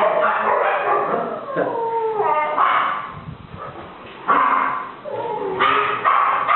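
A pet's high, whining cries: several calls that fall in pitch, with short breathy bursts between them.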